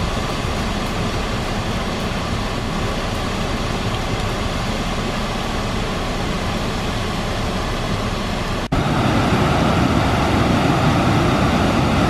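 Loud, steady rush of high river water churning over a dam spillway. It gets a little louder after a cut about three-quarters of the way through.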